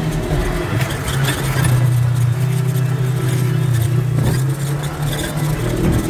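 Side-by-side UTV engine running steadily under way on a dirt trail, with scattered short knocks and rattles on top.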